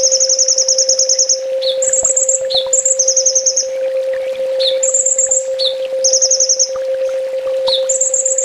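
Kolibri ninja sunbird song: rapid high-pitched trilled phrases repeated about once a second, each with short lower chirps between them. A steady low hum runs underneath.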